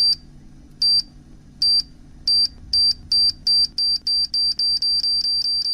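Electronic beeps of one high pitch repeating faster and faster, from about one a second to several a second, until they nearly run into a continuous tone near the end.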